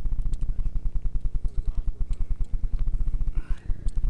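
Motocross motorcycle engine idling with a fast, even low beat, about ten pulses a second, with a few light clicks of handling noise on top.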